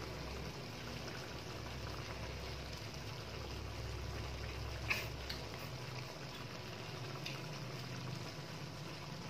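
Faint steady background hiss and low hum, with a couple of soft clicks about five and seven seconds in.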